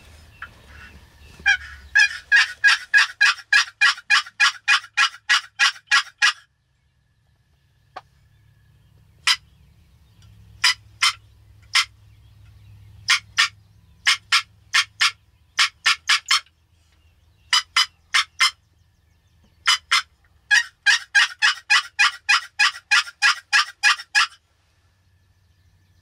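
Hunter's turkey call worked loudly to imitate a hen, calling long-distance to reach far-off gobblers. It gives a long run of evenly spaced yelps, then scattered single and short groups of notes, then another long run of yelps near the end.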